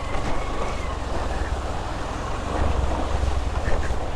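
Wind buffeting the microphone while riding a motorcycle on a rough dirt track, with a steady low rumble from the bike underneath.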